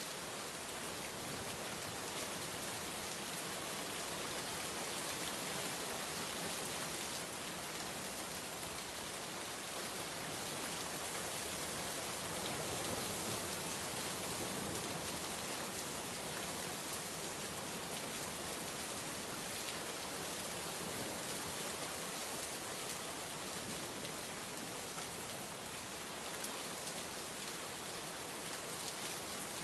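Steady rain falling, an even hiss of many drops hitting a surface with fine pattering detail, holding constant throughout.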